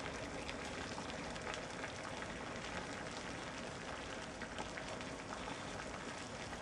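Water at a rolling boil in a metal camping pot over an aluminum-bottle alcohol stove: a steady bubbling hiss with faint crackles throughout.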